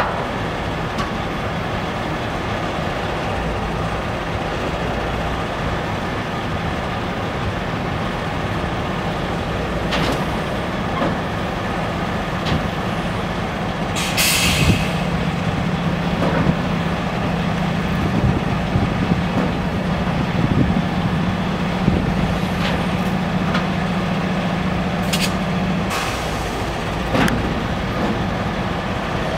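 Container handler's diesel engine running steadily while its spreader sets a 40 ft container onto a rail flat wagon. A low steady hum from the hydraulics comes in partway through and stops near the end, with one short sharp hiss of air about halfway through and a few light knocks.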